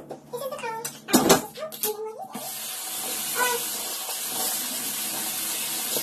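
A short thump about a second in, then from about two seconds in a steady hiss of running water, as from a bathtub tap or shower.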